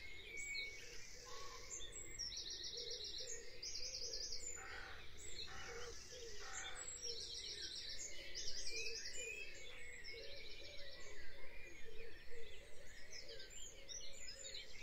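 Faint birdsong: short, high trills and chirps repeating every second or two over a steady low background hiss.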